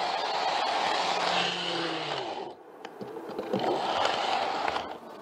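N-gauge model train running along the track, its motor and wheels whirring close to a camera riding on the train. A falling whine comes about two seconds in, then the running noise drops away briefly and picks up again.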